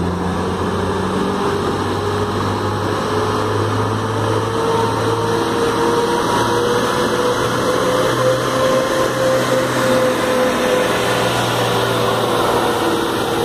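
Heavy truck engine running steadily as the truck wades through floodwater and passes close by, with a low hum and a pitch that rises gently and then eases back.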